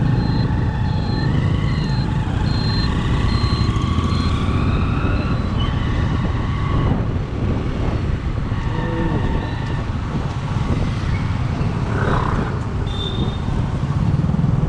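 Motor vehicle running on the road: a steady low rumble of engine and road noise. Over it comes a run of short high beeps, about two a second, for the first four seconds.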